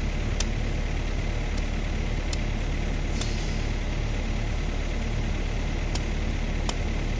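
A machete chopping and shaving the husk of a young coconut: about six sharp cuts at uneven intervals, one of them about three seconds in trailing a brief scraping hiss. Under them runs a steady low engine drone.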